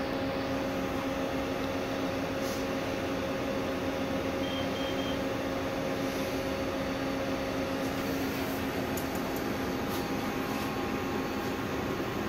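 Akira-Seiki Performa V4C CNC vertical machining center running with a steady hum and a constant tone. The tone fades about eight seconds in, and a few light clicks follow.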